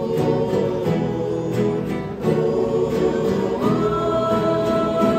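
A group of young men singing together while strumming guitars, in the style of a Mexican estudiantina, with a steady strummed beat under the voices. About two-thirds of the way through, a long high note comes in and is held.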